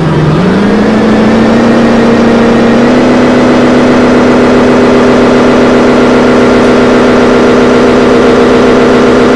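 Loud electronic drone played on a small hand-worked controller that shapes the live sound picked up from a billboard. The pitch dips low just after the start, glides back up within about a second, then holds steady.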